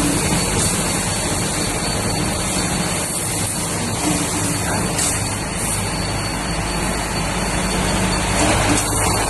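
GT3-6 rebar straightening and cutting machine running steadily: an electric motor hum under a dense mechanical noise of wire feeding through the straightening rollers.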